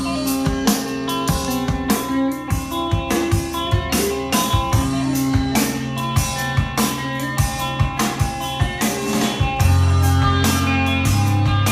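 Rock music with guitars and a drum kit, played from a vinyl record on a restored Garrard Lab 80 turntable. Loud low bass notes come in about ten seconds in.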